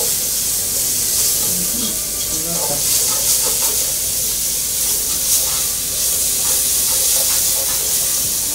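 Onions, pepper and carrot sizzling as they fry in a pan for samosa filling, a steady hiss, with a spoon stirring and scraping now and then.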